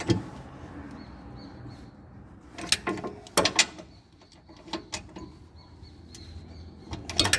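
Wrench tightening the bolts of the rear stabilizer bar bushing brackets: a few short metallic clicks and clacks several seconds apart, over a low steady hum.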